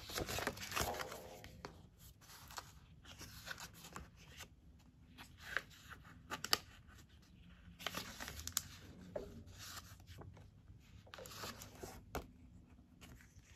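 Paper sticker-book pages rustling and flapping as they are leafed through by hand, with scattered soft taps and clicks.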